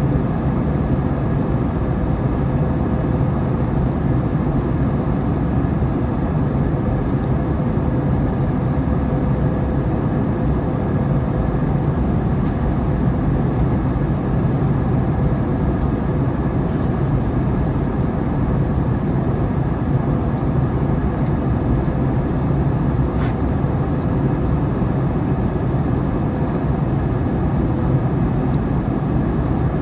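Steady wind noise on the microphone, heavy and low, with a faint steady hum underneath.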